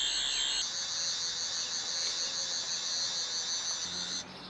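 Doctor Who sonic screwdriver toy giving its high, warbling electronic whine. It shifts pitch a little over half a second in and cuts off suddenly near the end.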